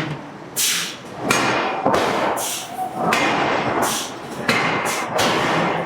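Hydraulic forging hammer striking a hot steel billet: a steady run of heavy blows, roughly one every half second.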